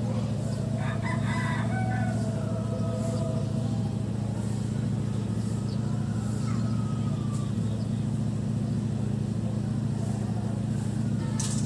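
A steady low hum with a rooster crowing about a second in, and a few fainter thin calls.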